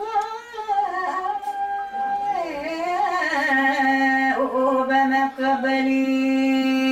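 A solo singing voice drawing out slow, wordless-sounding notes: a wavering phrase, a dip in pitch about two and a half seconds in, then one long steady note held from about three seconds in to the end.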